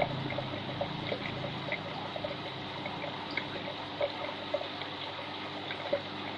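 Water trickling and bubbling in a large aquarium's water circulation, with small irregular plinks and drips over a steady low hum.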